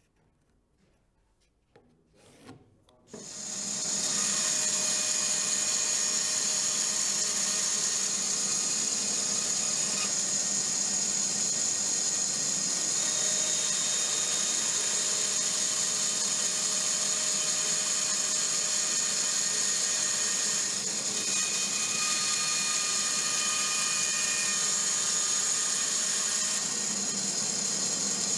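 Bandsaw running and cutting a curved shape out of a wooden board, a steady machine noise that starts suddenly about three seconds in, after a few faint taps.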